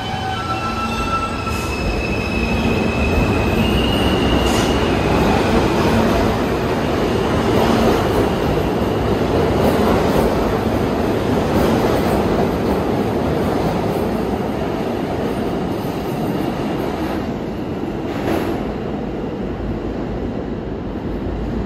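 New York City subway train running along a station platform. Its wheels squeal in high tones for the first few seconds, then a steady rumble of wheels and motors builds to a peak about halfway through and slowly fades.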